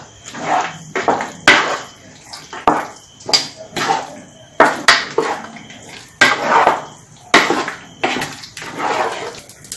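A spoon stirring a thick, wet curry of rabbit meat and mashed tapioca in a non-stick pot: repeated scraping, squelching strokes, about two a second.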